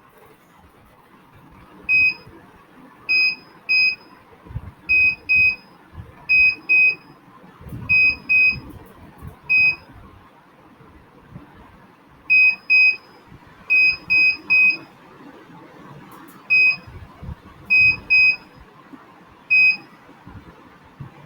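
Small electronic buzzer driven by an Arduino beeping out Morse code: one steady high-pitched tone switched on and off in short pulses, grouped with short pauses between letters and a pause of about two seconds in the middle.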